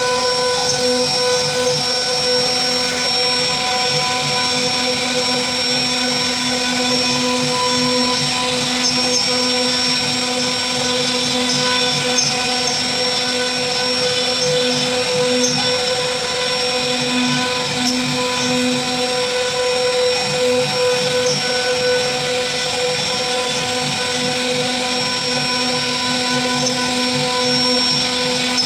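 CNC wood router's spindle running with a steady high whine while its bit carves a relief into a wooden panel, the rasp of the cutter in the wood underneath.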